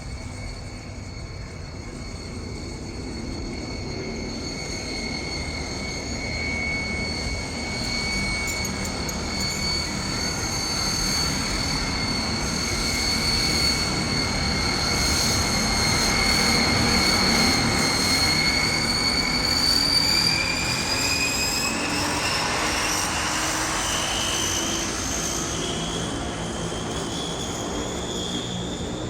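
Jet aircraft engine running, a steady high-pitched whine over a rushing roar that swells toward the middle. About two-thirds of the way in, the whine rises in pitch.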